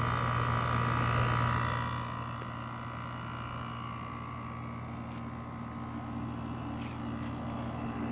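LG ThinQ 8000 BTU window air conditioner running with its LG compressor on: a steady hum under the rush of the fan, dropping a little in loudness about two seconds in.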